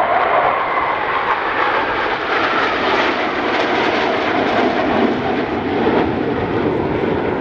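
Jet noise from a formation of eight KAI T-50 Golden Eagle trainers flying past, each powered by a single General Electric F404 turbofan: a steady, even rushing sound with no single pass standing out.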